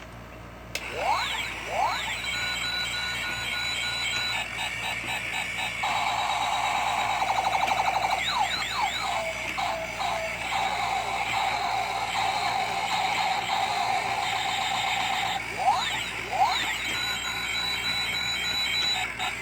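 Electronic sound effects in a toy-like, chiptune style. They start suddenly about a second in, with fast rising and falling laser-like sweeps, held tones and rapid repeated beeps.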